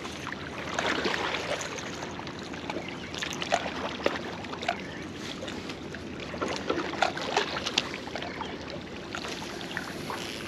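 Water lapping and splashing along the shore, with scattered light clicks and small splashes.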